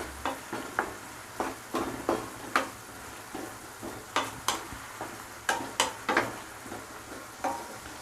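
A utensil stirring and scraping prawns in chilli masala frying in coconut oil in a pan, in short irregular strokes about twice a second over a low steady sizzle.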